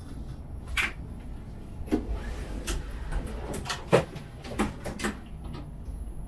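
Steady low hum of a Talent 3 electric multiple unit standing at a platform, broken by about six sharp clicks and knocks spread over a few seconds, the loudest about four seconds in.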